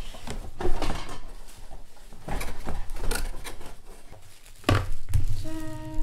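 Cardboard box and packaging rustling and knocking as a boxed coffee machine is lifted out of its shipping carton, with a hard thump about three-quarters of the way through. A short steady tone sounds near the end.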